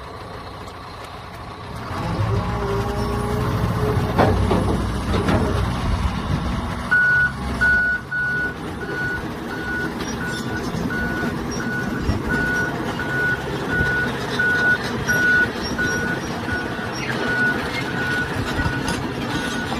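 Diesel engine of a John Deere 200G LC hydraulic excavator rising to a steady run about two seconds in, with a few knocks from the machine shortly after. From about seven seconds its travel alarm beeps, one high-pitched beep roughly every 0.6 seconds, as it moves.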